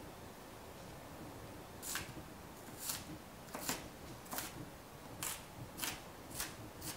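Chef's knife mincing onion on a plastic cutting board: about eight short chopping strokes, a little under a second apart, starting about two seconds in.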